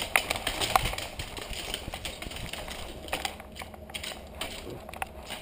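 Irregular sharp clicks and knocks from a puppy running about with a GoPro strapped to her in a homemade dog mount. The clicks are loudest and densest in the first second, then thin out.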